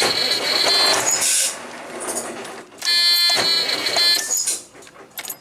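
Truck's electric starter cranking the engine in two short bursts of about a second each, as a test after bad ground connections were cleaned. A high, steady buzzer tone sounds briefly just before each burst.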